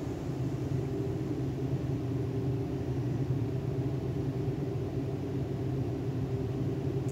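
Steady low machine hum with several held tones, unchanging throughout.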